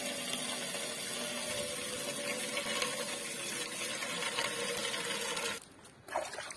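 Tap water pouring in a steady stream into a large metal cooking pot, a continuous splashing hiss with a hollow ring from the pot. It cuts off suddenly about five and a half seconds in.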